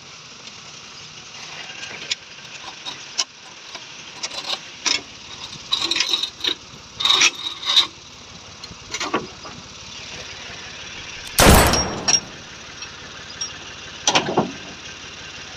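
Irregular sharp knocks and clatter over a steady background noise, with one louder, longer clatter about eleven seconds in.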